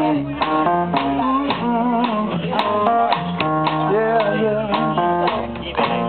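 Live band playing: guitar and drums, with a singing voice over them.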